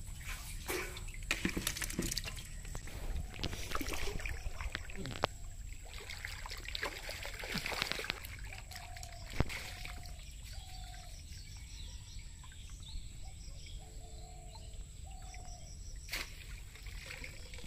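Canal water splashing and trickling as a man wades and works a ring net in it, busiest in the first half. A few short faint tones sound in the second half.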